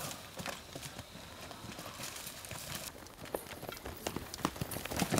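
Footsteps of several people running on dry dirt and straw: a quick, irregular patter of footfalls that grows denser about three seconds in.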